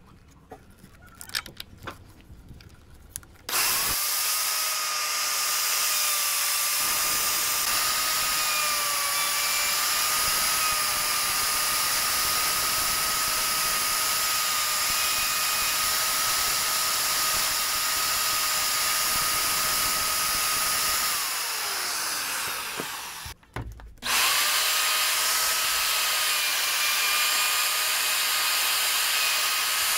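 Oyoma electric plunge router: a few handling clicks, then it is switched on a few seconds in and runs with a steady high whine while routing a wooden strip. A little after twenty seconds it is switched off and its pitch falls as it winds down, then it is started again about a second later and runs on.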